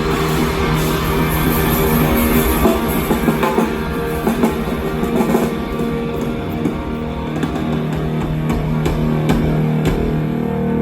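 Live rock band playing an instrumental passage: electric guitar holding chords over a drum kit with repeated cymbal and drum hits.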